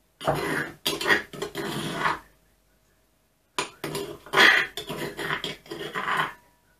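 Pestle crushing and grinding garlic in a mortar: two bouts of gritty scraping and pounding, each about two to three seconds long, with a pause of over a second between them.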